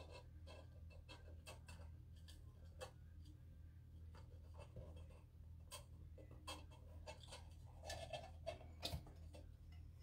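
Faint scratching and light taps of a cardboard sheet and a plastic catch cup being shifted over substrate in a plastic enclosure. The scrapes come more often near the end, over a low steady hum.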